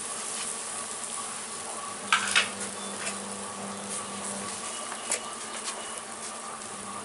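Thickened jaggery syrup simmering in an aluminium kadai: a steady low hiss, with a low buzz that comes and goes and two light clicks, about two and five seconds in.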